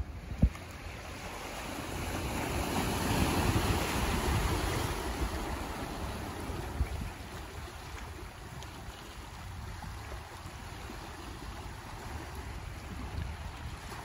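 Small waves washing onto a sandy beach, with wind rumbling on the microphone. The wash swells about two seconds in and eases off after about five seconds; a single short knock about half a second in.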